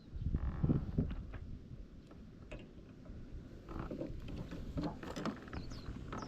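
Low rumbling wind and handling noise on the microphone, with scattered sharp clicks and knocks and a louder patch about a second in. Near the end a bird gives a run of short, quick falling chirps.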